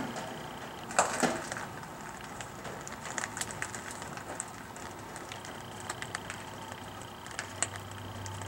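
Light clicks and knocks of hand tools and parts being handled, with a sharper double knock about a second in and scattered small clicks after.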